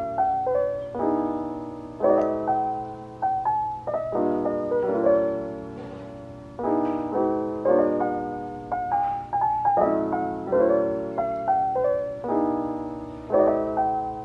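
Background piano music: gentle chords and a melody of single notes, each note struck and then fading.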